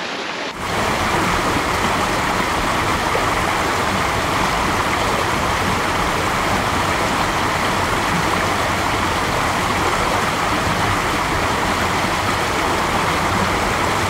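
Waterfall crashing down and cascading over rocks: a steady, dense rush of water, close to the microphones. It starts about half a second in.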